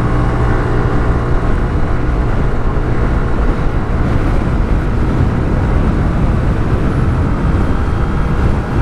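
Honda Vario 125 scooter's single-cylinder 125 cc engine pulling under hard throttle in a straight-line acceleration run, a steady drone mixed with rushing road and wind noise.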